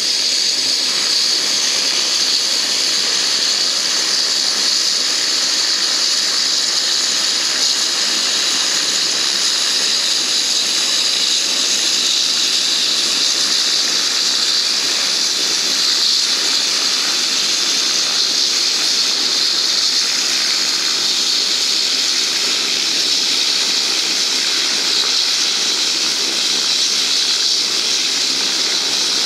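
Turboprop airliner engines running as the aircraft taxis close by: a loud, steady, high hiss with a faint turbine whine in it.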